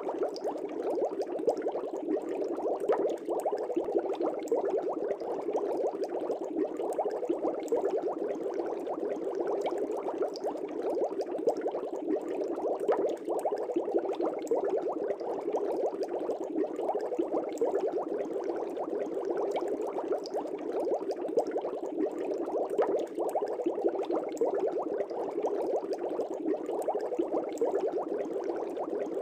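Air bubbles rising through the water of a fish tank, a steady dense bubbling with small pops and ticks over it.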